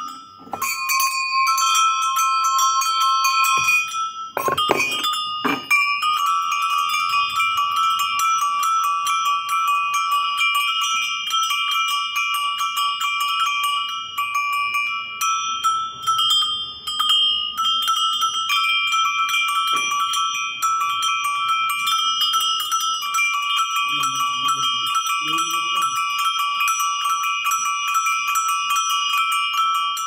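A handful of cast metal goat bells shaken together by hand. Their clappers strike rapidly, so the bells ring continuously in several overlapping steady tones, with a few louder clangs about four to five seconds in.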